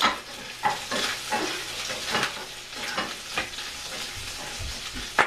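Cubed pancetta frying in a sauté pan, sizzling and popping as it starts to crisp, while a spatula stirs and scrapes it around the pan. A sharp click stands out just before the end.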